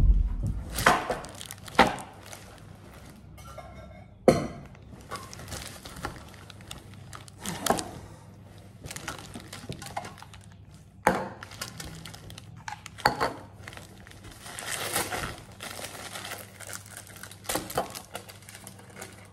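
A heavy thump of a car door shutting at the start, then plastic shopping bags rustling and crinkling as groceries are unpacked, with scattered knocks and clunks of items such as aerosol cans being set down on a stone countertop.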